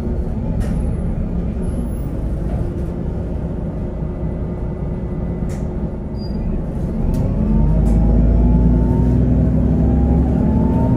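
Cummins ISB6.7 six-cylinder diesel of a 2018 Otokar Vectio C city bus, heard from inside the passenger cabin, running steadily while the bus stands at a stop. About seven seconds in it gets louder and rises in pitch as the bus pulls away. A few short clicks are heard along the way.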